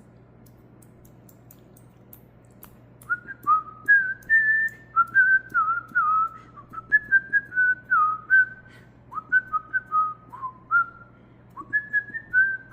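A man whistling a quick tune of short, stepping notes, starting about three seconds in after a quiet stretch with a faint low hum.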